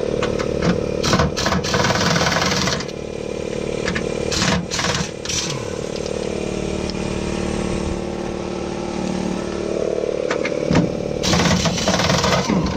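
An engine running steadily at an even speed, with several bursts of knocking and clatter over it.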